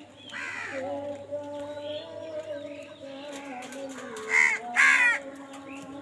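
House crows cawing harshly: one call near the start, then two loud caws in quick succession about two-thirds in, with another starting at the very end.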